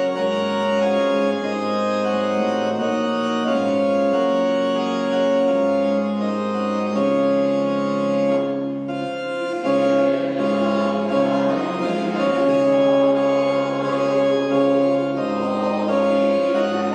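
Church organ playing a hymn tune in held chords that change every second or so, with a brief lull about halfway through before it goes on.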